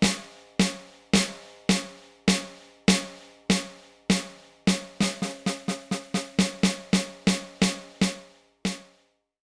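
Roland TD-12 module's snare sound triggered again and again by touching the sensor sponge of the repaired mesh snare pad, heard direct from the module's output: the trigger is responding. Single snare hits come a bit under two a second, then about three a second from the middle, and stop just before the end.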